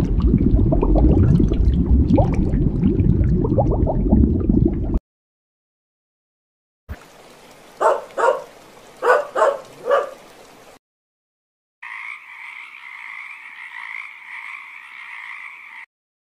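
A loud, low rush of water noise for about five seconds. Then a small white dog barks five times in quick succession. Then a frog calls in a steady, even trill for about four seconds.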